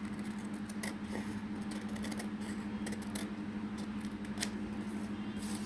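Scissors snipping through thin old book paper, trimming it close around a card: scattered short cuts, over a steady low hum.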